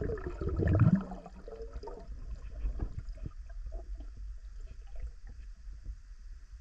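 Water splashing and gurgling around the microphone as a freediver ducks under, loudest in the first second. Then comes the muffled low rumble of being underwater, with scattered small clicks and knocks.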